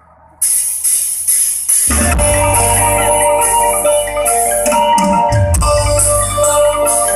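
Isan mor lam band music starting up: cymbals come in about half a second in, then the full band with bass, drums and a bright melody from about two seconds in.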